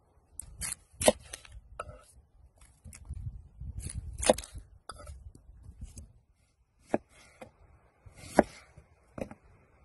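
A cleaver cutting through a whole onion on a wooden cutting board. Each stroke ends in a sharp knock of the blade on the board, five of them loud, with quieter crisp cuts in between.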